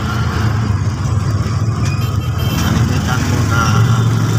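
Motorcycle engine of a sidecar tricycle running on the move, with road noise. Its low note wavers for the first few seconds and settles into a steady hum near the end.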